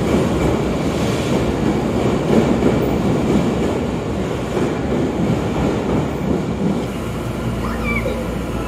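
Toei Mita Line 6500-series electric train running past the platform, a steady rumble of wheels on rail. The sound eases a little near the end, where a brief high squeal curves upward.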